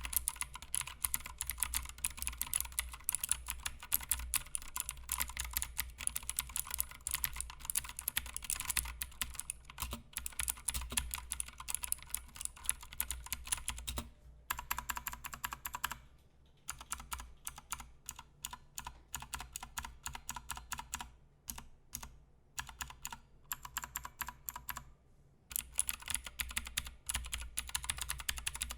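Typing on a Royal Kludge RK61 60% mechanical keyboard with clicky blue switches and doubleshot PBT keycaps: a fast, dense run of key clicks, broken by a few short pauses in the second half.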